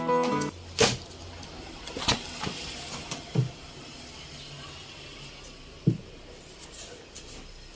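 Acoustic guitar music stops about half a second in, then a handful of separate knocks and clicks, as of objects being handled and set down, over a faint low hum.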